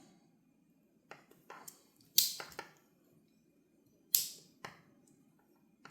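Tools of a Victorinox 91 mm Compact Swiss Army knife clicking and snapping against the backspring as they are swung open and shut, with two sharp snaps about two and four seconds in and softer ticks around them.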